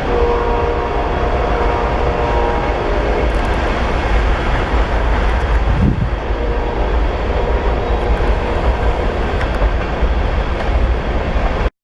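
A train passing on the nearby tracks: a loud, steady rumble of rail cars rolling by, with faint steady tones over it in the first few seconds.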